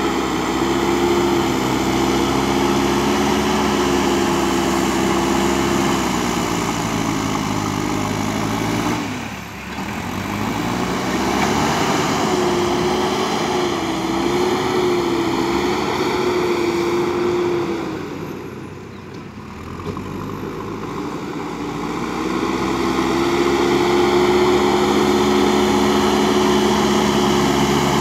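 Backhoe loader's diesel engine running hard as it works its front bucket, the revs sagging and dropping back twice, about a third and two-thirds of the way through, then climbing again.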